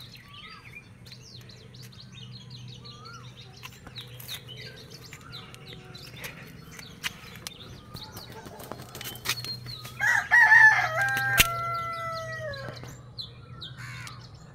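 A rooster crowing once about ten seconds in, a long cock-a-doodle-doo of nearly three seconds that falls in pitch at its end, with small birds chirping throughout.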